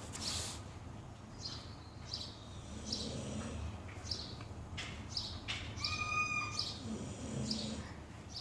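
Shar-Pei dog snoring, a slow low snore about every four seconds, with high bird-like chirps about once a second and a brief whistle-like tone about six seconds in.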